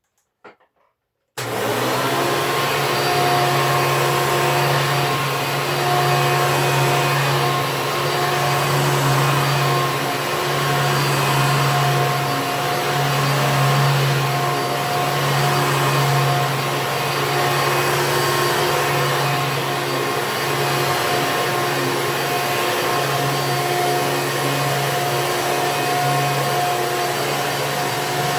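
Hoover Elite upright vacuum cleaner switched on a little over a second in, its motor coming straight up to speed and running steadily, a low hum with a steady higher whine over the rush of air.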